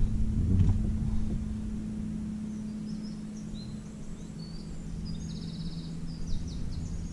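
A steady low engine hum, with small birds chirping and one giving a rapid trill from about three seconds in.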